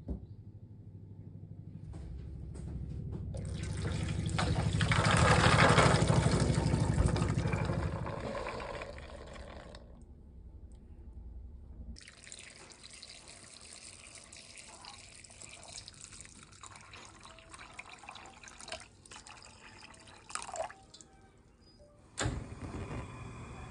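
Water poured from a metal pitcher into a pot of soybeans, a steady splashing pour. It comes in two long stretches with a short pause between; the first swells louder and then fades.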